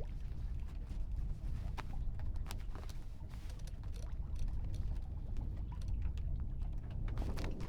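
On board a small sailboat: a steady low rumble with scattered light clicks, knocks and splashes of water against the boat.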